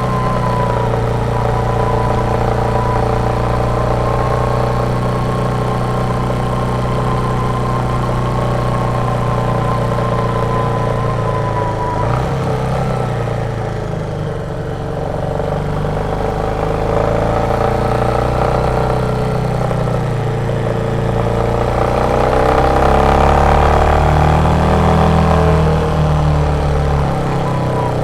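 Royal Enfield Meteor 350's 349 cc single-cylinder engine thumping under way. The engine eases off about halfway through, then pulls harder, rising in pitch and getting louder, and drops back near the end.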